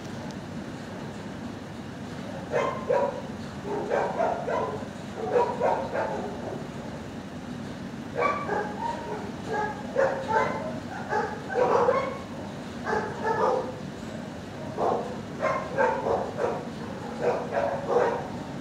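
Dogs barking in a shelter kennel block: bouts of quick barks starting a couple of seconds in, broken by short pauses, over a steady low background hum.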